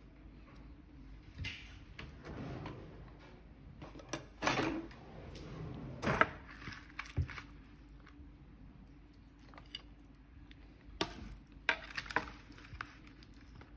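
Scattered knocks and short rustles of handling. The loudest is a sharp knock about six seconds in, with a few more near the end.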